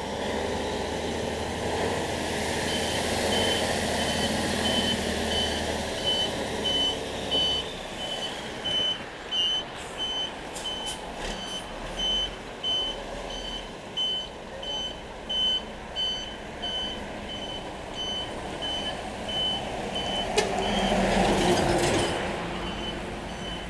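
A truck's reversing alarm beeping steadily about once a second over a diesel engine running. A heavy vehicle passes close, loudest a little before the end.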